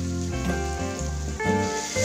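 Background music with held notes, over the steady sizzle of tape (fermented cassava) frying in melted butter in a non-stick pan.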